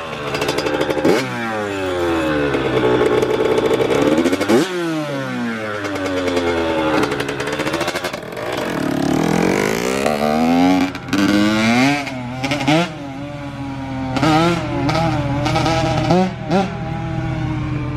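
Yamaha YZ85 two-stroke single-cylinder dirt bike being ridden hard, its engine revving up and dropping back over and over as it pulls through the gears.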